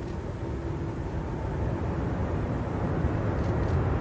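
Boeing 747's four jet engines at takeoff power: a deep, steady rumble that grows gradually louder.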